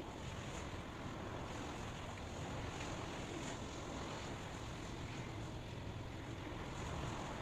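Steady white noise: an even rushing hiss with no separate events.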